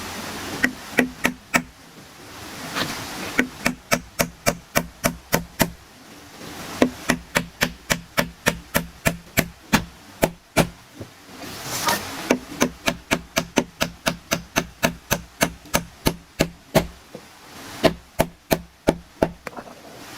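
Rapid series of sharp knocks, about three a second, in five runs separated by brief pauses.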